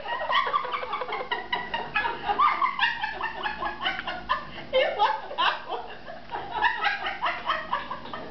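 People laughing hard at the punchline of a joke, in repeated bursts of laughter.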